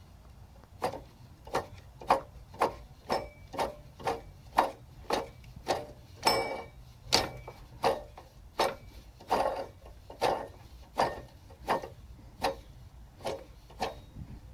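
A bad automotive belt tensioner moved back and forth with the engine off, giving a short creak or click with each movement, about one or two a second and fairly evenly paced; some strokes carry a brief squeak. The noise is the sign of a worn tensioner.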